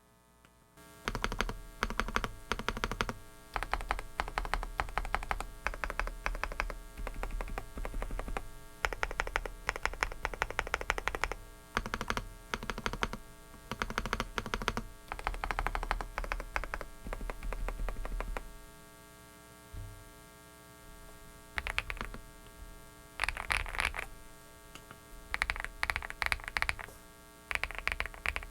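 Typing on a Dareu mechanical keyboard: rapid runs of keystroke clicks from about a second in, thinning to shorter clusters of keystrokes in the last third. A steady electrical hum from a faulty microphone lies under the typing.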